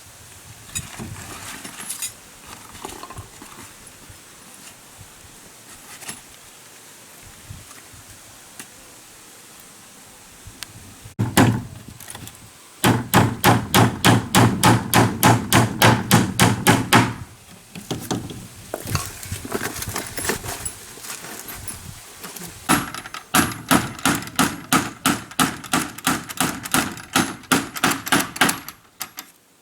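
Hammering: two long runs of quick, even blows, about four or five a second, the first starting about a third of the way in and the second near the end, with a few scattered blows between.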